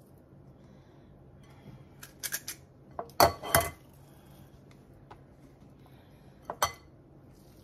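A metal spring-handled scoop clicking and clinking against a glass mixing bowl: a few quick light clicks about two seconds in, two loud clinks near the middle as the scoop is set down in the bowl, and another pair of clinks near the end.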